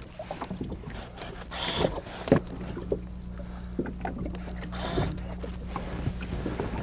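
Lake water splashing and lapping at the side of a boat as a large lake trout is held in it to revive, with two louder splashes and a few sharp knocks against the hull.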